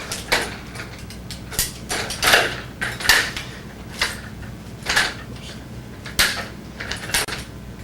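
Umbrella stroller frame being folded and opened by hand: a string of irregular clicks, clacks and rattles from its joints and locking mechanism.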